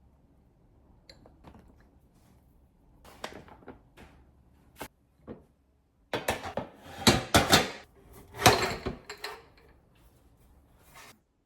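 Knocks and clatter of things being handled, a few light clicks at first, then a loud burst of clattering knocks about six seconds in that lasts some three seconds.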